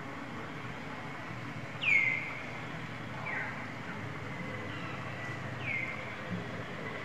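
A bird calling: three whistled notes, each sweeping down and then holding a steady tone. The loudest comes about two seconds in, the others fainter, over steady low background noise.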